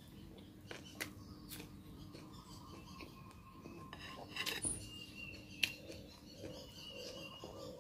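A spoon clinking and scraping against a glass soup bowl while broth is scooped out, a few separate clinks with the sharpest one a little past the middle.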